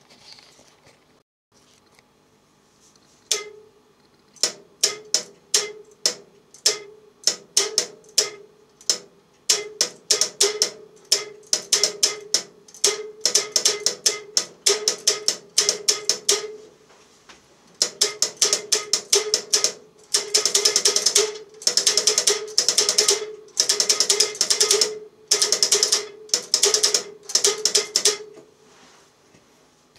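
Bank of small switching relays inside a homemade remote-controlled L-network antenna tuner clicking as it steps through coil and capacitor combinations. Separate clicks start about three seconds in and quicken into rapid runs of clicking, densest in the last third.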